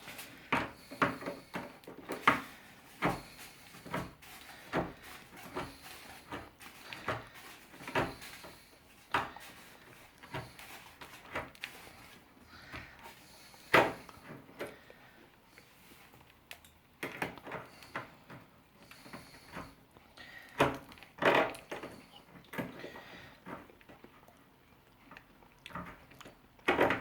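Hand-held can opener being worked on a tuna can: irregular sharp metallic clicks and knocks, one or two a second, with a couple of short pauses. The opener is failing to cut the lid.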